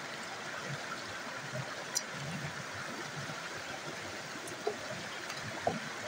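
Small river cascade splashing steadily over rocks, with a single sharp click about two seconds in.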